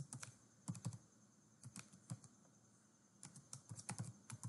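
Faint computer keyboard typing: quick clusters of keystroke clicks with short pauses between them.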